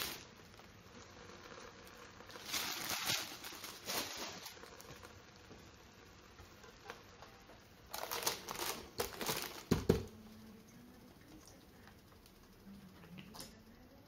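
Rustling of baking paper and bean sprouts being handled in an electric hot plate, in a few short bursts, then more paper rustling and a single knock as the hot plate's lid is set down, about ten seconds in.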